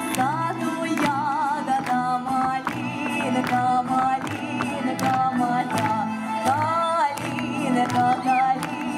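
A woman sings with a wavering vibrato into a microphone over backing music with a steady, regular beat.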